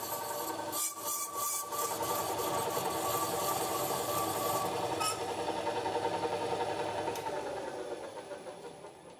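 Valve seat cutting machine running with a steady hum while its cutter machines a valve seat in a Volkswagen AP cylinder head, with brief scraping about a second in. The sound dies away over the last two seconds.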